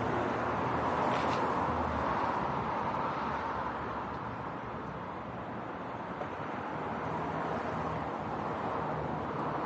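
City street traffic: a steady wash of car and tyre noise from passing vehicles, easing a little midway.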